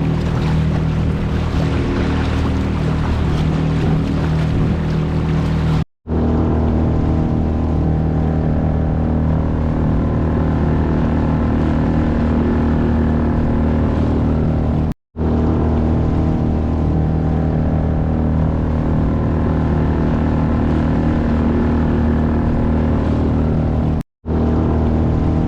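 Small boat's outboard motor running steadily under way, with water and wind noise over it; the sound drops out briefly three times.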